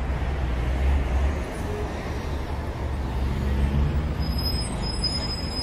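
Steady low rumble with a hiss over it, swelling slightly twice.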